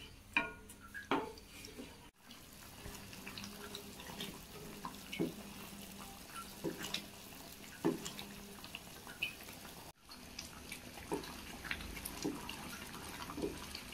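Spatula stirring thick jaggery syrup with lentils in a non-stick pan: repeated soft sloshing and scraping strokes as the pradhaman simmers and thickens.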